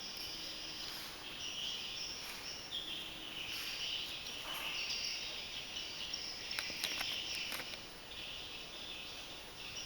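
Insects chirping steadily in a shrill, high-pitched din, with a few faint clicks about seven seconds in.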